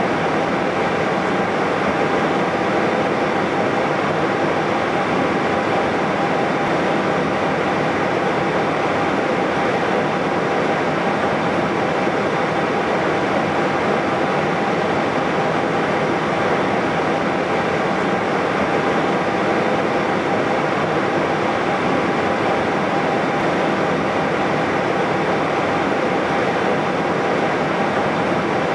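Airbus A320-214 taxiing with its CFM56 engines at idle: a steady, even rush with a faint whine held at one pitch.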